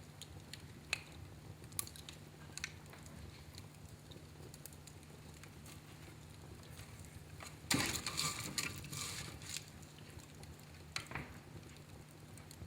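Wood fire in a fireplace crackling, with scattered sharp pops and a louder, denser run of crackling about eight seconds in, over a low steady hum.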